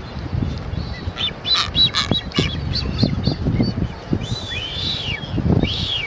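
Blue-footed boobies calling: a run of short high notes, then two long arched whistles that rise and fall, the whistle of the male booby, over a low rumble.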